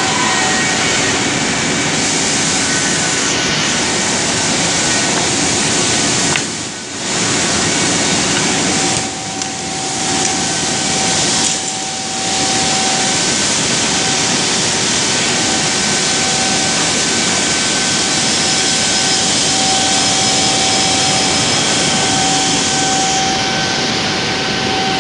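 Woodmaster CNC mortising and grooving machine running with its router spindle: a steady loud rush with a constant high whine, dipping briefly three times in the middle.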